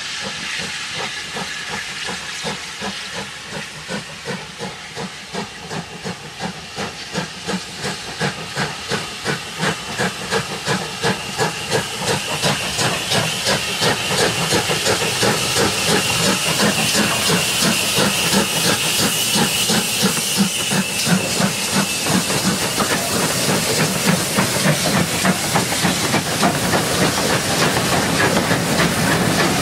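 Steam locomotive working hard as it approaches and passes: a steady rhythm of exhaust beats over a hiss of steam, growing louder as it nears. Near the end its coaches roll by close at hand.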